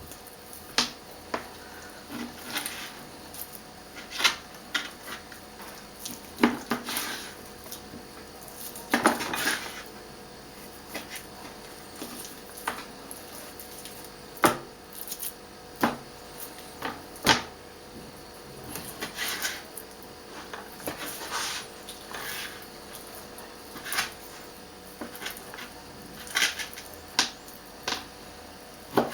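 Irregular knocks and clinks of a knife and cookware, with a few short scraping sounds, scattered through the whole stretch.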